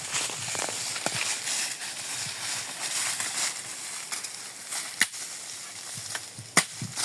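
Scattered sharp snaps of dry wood, two louder ones about five and six and a half seconds in, over a steady outdoor hiss, as a campfire is built.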